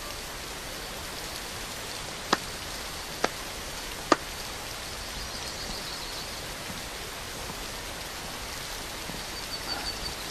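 Steady rushing of a waterfall, with three sharp clicks a little under a second apart about two to four seconds in, and faint high chirps about halfway through and again near the end.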